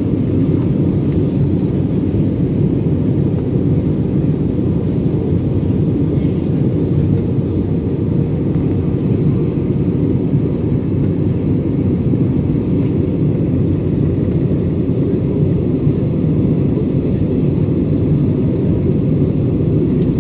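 Jet airliner cabin noise in flight: the steady low rumble of the engines and the airflow past the fuselage, heard from inside the passenger cabin.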